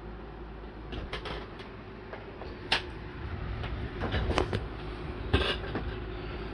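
A handful of short, scattered clicks and knocks, as of small objects being handled, over a steady low hum.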